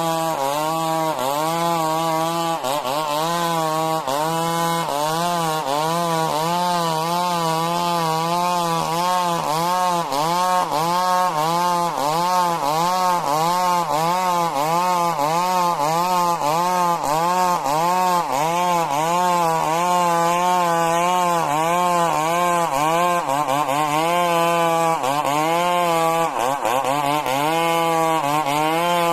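A Stihl MS 382 two-stroke chainsaw cutting lengthwise through majau timber, running under load the whole time. Its engine note rises and falls about twice a second, dropping deeper where it bogs, about three seconds in and again near the end.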